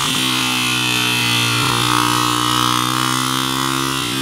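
Honda dirt bike engine running at steady high revs while the bike is held up on its back wheel in a wheelie, its pitch dipping briefly a couple of times.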